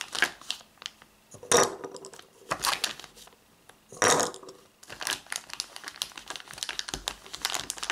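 Steel .50-calibre balls being dropped one at a time into the plastic speed loader of an Umarex HDP50: a run of sharp clicks and rattles, with crinkling from the plastic bag the balls are picked from.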